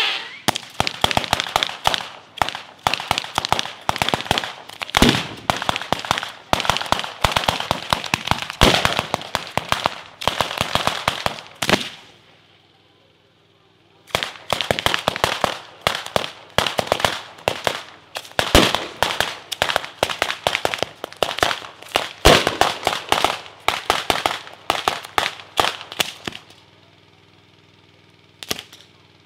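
Batteria alla napoletana: chains of firecrackers strung along fuse lines going off in rapid volleys of sharp cracks that swell in waves. The volleys pause for about two seconds around twelve seconds in, then resume before dying away near the end.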